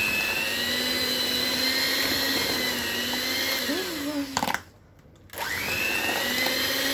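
Electric food mixer motor running steadily with a high whine while mixing cake batter. It stops briefly about four and a half seconds in and starts again about a second later.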